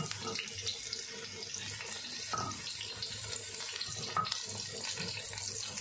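Ground spice paste of shallot, garlic and turmeric sizzling in hot oil in a wok, with a steady hiss. A spatula stirs it, knocking on the wok about two seconds in and again about four seconds in.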